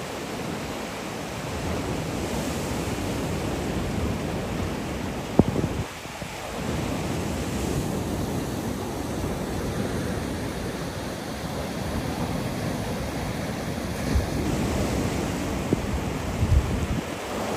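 Sea waves washing on the beach as a steady wash of surf, with wind gusting on the microphone. A single sharp click about five seconds in.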